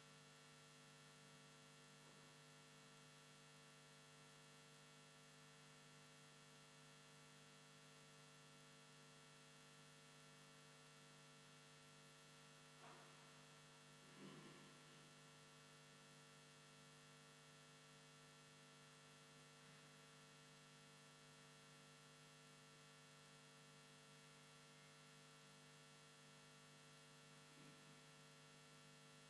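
Near silence: a faint steady electrical hum, with a couple of faint short knocks about halfway through and another near the end.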